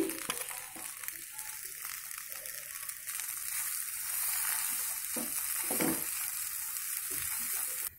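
Mashed potato masala sizzling in hot oil in a nonstick kadhai, bhuna-fried on a high flame while a wooden spatula stirs and scrapes it. The sizzle grows louder about three seconds in.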